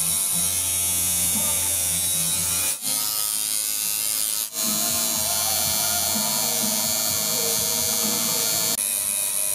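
Electric tattoo machine buzzing steadily as its needle works into skin, with two brief breaks about three and four and a half seconds in.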